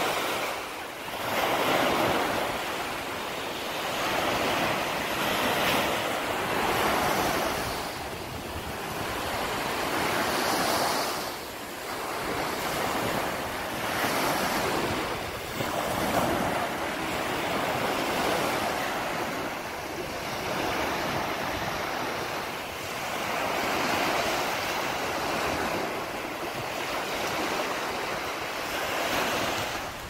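Small sea waves breaking and washing up a sandy beach. The surf swells and falls back every few seconds.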